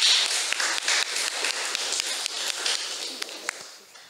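Audience applauding, a dense patter of many hands clapping that fades away over a few seconds.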